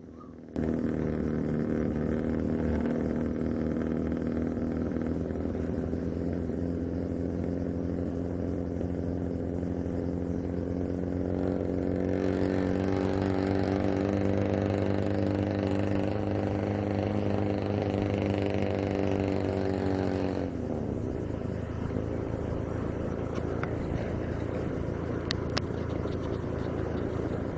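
Car engine running while driving. Its pitch rises slowly as it speeds up, then drops suddenly about twenty seconds in, as with a gear change or lifting off the throttle, and it keeps running steadily after that.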